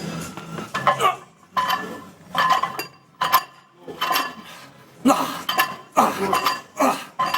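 Metal gym weights clanking together again and again during a set of reps, about two clanks a second, often in pairs.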